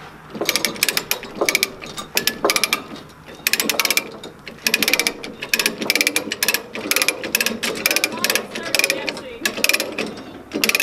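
Two ratchet chain binders being cranked to tighten tie-down chains, in quick repeated bursts of ratchet clicking.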